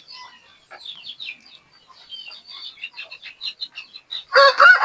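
Chickens making short, irregular high chirping calls, then a loud drawn-out chicken call starting about four and a half seconds in.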